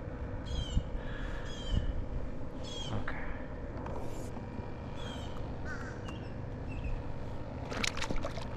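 A bird calling over and over in short calls, about one a second, with wind rumbling on the microphone. A few sharp clicks come near the end.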